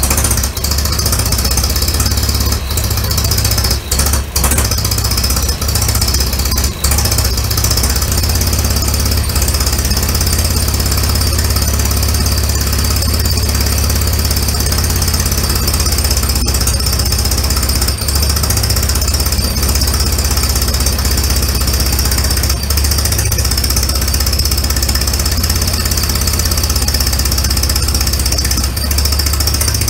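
Allis-Chalmers WD45 tractor engine running at idle, uneven, dipping briefly a few times in the first several seconds. It runs rough because the spark plug firing order is wired wrong.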